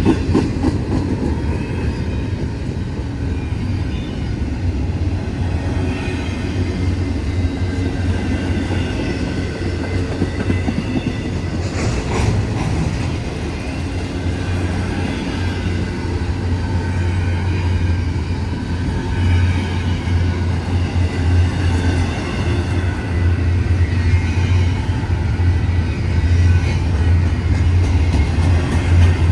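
Cars of a slow-moving CSX freight train rolling past at walking pace, with a steady low rumble, wheels clacking over the rail joints and a faint wheel squeal. One sharper clack about twelve seconds in.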